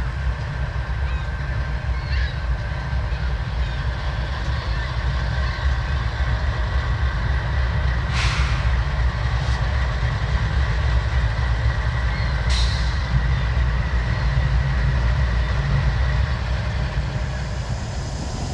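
Train rolling past: a steady low rumble of wheels on rails, with a thin high squeal running under it. There are two sharp metallic clanks, about eight and twelve seconds in.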